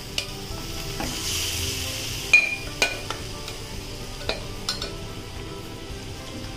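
Marinated chicken pieces frying with onions in a pan, sizzling steadily as a spatula stirs them, with a few sharp knocks of the spatula against the pan, the loudest a little past two seconds in. Faint background music underneath.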